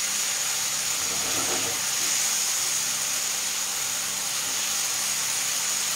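Fish fillets sizzling steadily in hot fat in a frying pan.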